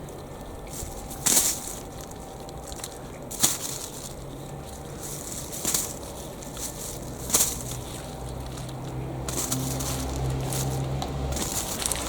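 Plastic carrier bag crinkling as freshly dug potatoes are put into it, in short crackly bursts about every two seconds. A low hum joins about four seconds in, grows louder and stops shortly before the end.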